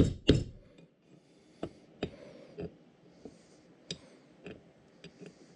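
Hammer blows on a brass drift, driving a bevel gear and its shaft out of a cast milling-attachment housing to press out the bearing. Two sharp metallic strikes in the first half second end a quick series of about three a second. After that comes a pause with a few faint light taps.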